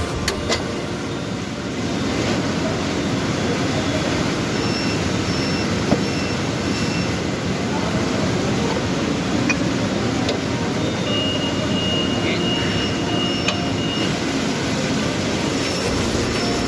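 Paper bag machine running with a steady mechanical noise. A thin high tone sounds briefly about eleven seconds in.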